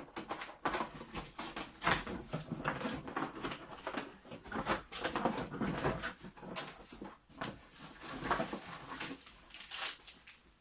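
Irregular rustling, crinkling and light knocks of packaging and parts being handled as an item is unboxed.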